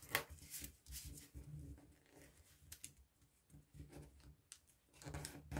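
Soft rustling, crinkling and light taps of a small square of colored origami paper being folded, its creases pressed flat by the fingers.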